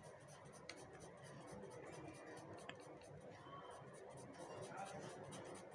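Faint scratching of a pencil shading on paper, with a couple of light ticks.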